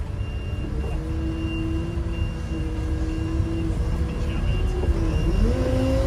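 Tractor engine running, heard from inside the cab, its pitch rising about five seconds in as the engine revs up. A faint high beep repeats on and off throughout.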